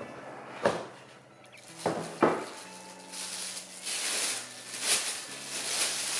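A few sharp knocks of a cardboard camera box and its lid being handled and set down on a table, then clear plastic wrapping crinkling and rustling from about halfway through as a camera is unwrapped. Faint background music runs underneath.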